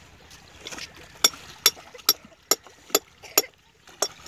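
Hand tool working metal at the base of a Petter diesel engine being fitted: about seven sharp metallic clicks, evenly spaced a little over two a second, starting about a second in.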